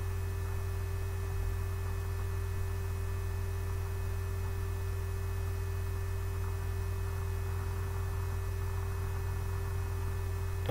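Steady low electrical hum with a faint higher tone and light hiss, unchanging throughout.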